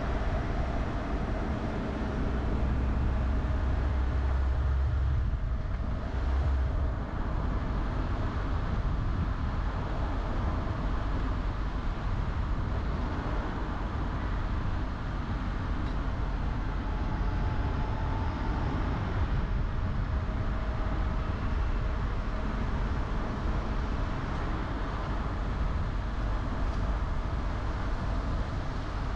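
A car driving, with steady road and engine rumble. The low rumble is heavier for a few seconds near the start.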